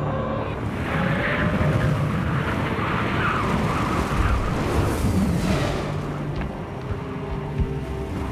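Cinematic sound effects of an asteroid impact and its blast: a dense, continuous rushing rumble that swells and ebbs, with a short thud near the end.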